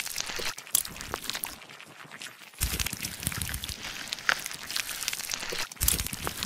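Crackling, crunching ASMR foley of a blade scraping through a crusty mass, with scattered sharp clicks and pops throughout and a fuller rustling scrape starting about two and a half seconds in.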